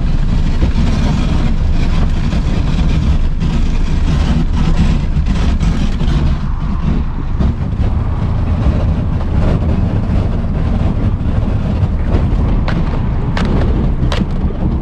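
A motorboat's engine running under power as the hull rams through sheet ice, the ice crunching and cracking against the hull, with several sharp cracks near the end.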